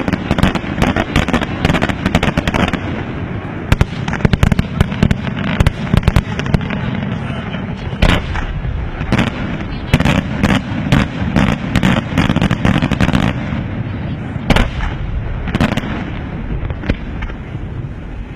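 Aerial fireworks shells bursting in quick succession during a fireworks display: dense runs of sharp bangs over a continuous low rumble, with a few heavier single bangs standing out and the bursts thinning out towards the end.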